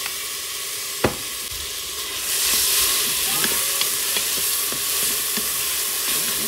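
Butter and blended onion sizzling in a hot multicooker bowl while being stirred with a wooden spatula, with small scraping ticks. A sharp knock about a second in, and the sizzle grows louder about two seconds in.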